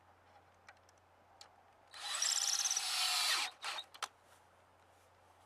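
Drill with a 7/16 socket extension driving a leg bolt into the log arm in one run of about a second and a half, followed by a few short clicks.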